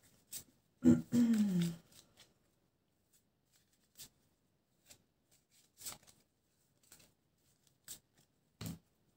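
Scattered light clicks and taps. About a second in comes one short, loud voice-like sound whose pitch falls, and there is a low knock near the end.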